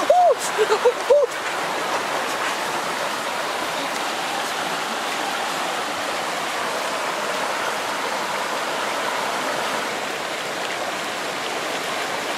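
Fast-flowing stream water rushing over rocks, a steady even rush. A few brief rising-and-falling tones stand out above it in the first second or so.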